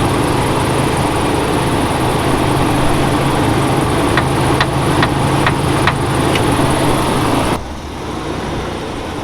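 1990 Chevy truck engine running steadily, with a run of about six light clicks roughly two a second midway; the sound cuts off abruptly near the end.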